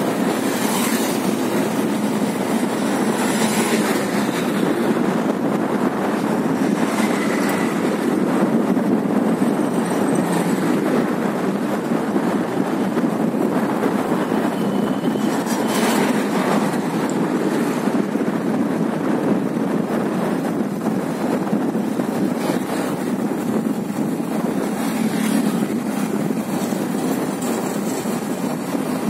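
Steady rush of wind and road noise on a phone's microphone from a moving motorcycle, with a few brief louder gusts.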